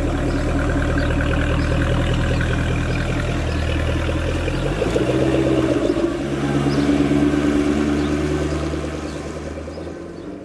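Car engine running at low, steady revs, its note shifting about five seconds in, then fading out near the end.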